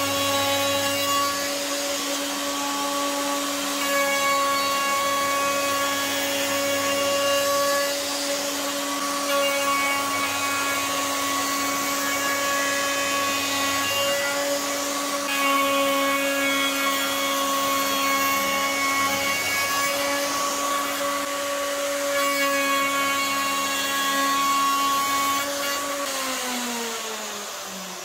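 Electric router on a flattening sled running at a steady high whine, its bit cutting across a round of wood and epoxy resin. Near the end it is switched off, and its pitch falls as it winds down.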